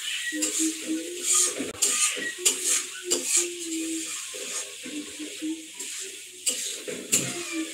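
Pots and utensils clinking and scraping, with irregular sharp knocks.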